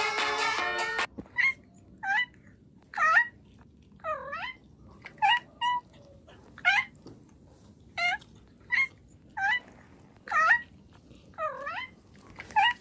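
A domestic cat making a run of short meow-like calls, a dozen or so about once a second, each dipping and rising in pitch, as it eats crunchy food. Background music cuts off about a second in.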